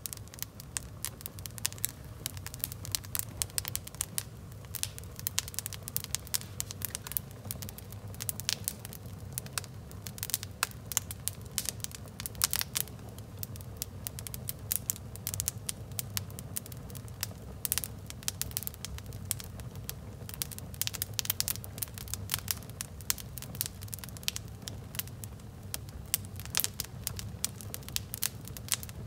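Wood fire with sneakers burning in it, crackling with many sharp pops and snaps over a steady low rumble.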